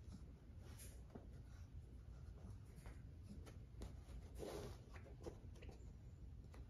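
Near silence with faint, scattered scratches and rustles from a French bulldog puppy's claws and paws on couch upholstery, with one slightly louder rustle past the middle.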